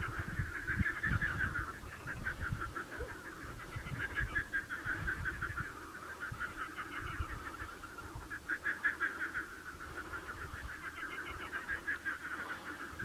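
A chorus of animal calls, given as rapid pulsed trains each lasting a second or two and repeating, with low rumbling thumps in the first couple of seconds.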